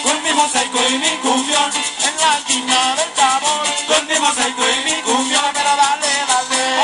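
Live cumbia band playing: a bending melody line over a steady, evenly repeating rhythm of high percussion strokes.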